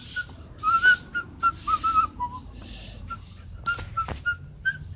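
A person whistling a string of short notes that hop up and down in pitch, with breathy rushes of air among them.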